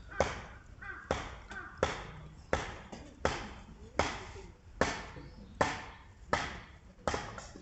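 A steady series of about ten chopping strokes, one a little under every second, each a sharp knock that dies away quickly.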